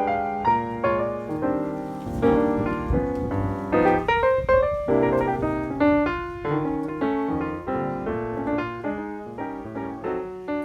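Background piano music: a flowing run of struck notes and chords, each ringing and decaying, growing slowly softer toward the end.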